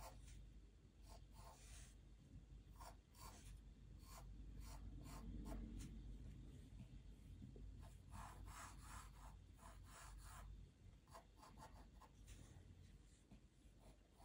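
Faint pencil strokes scratching on paper as a drawing is sketched, in quick irregular strokes that come thickest about eight to ten seconds in.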